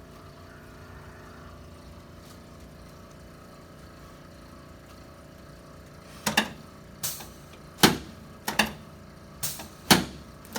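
Chiropractic adjusting thrusts on a patient in the knee-chest position: about seven sharp knocks in quick succession, starting about six seconds in. Before them, only a steady low room hum.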